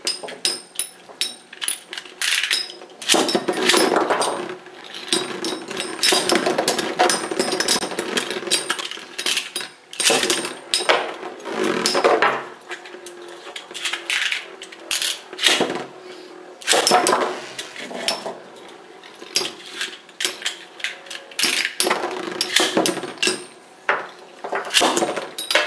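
Metal Fight Beyblade spinning tops with metal wheels, grinding and clashing in a plastic stadium. Rapid clusters of sharp clacks and rattles as they strike each other and the stadium wall, with brief lulls between the clashes.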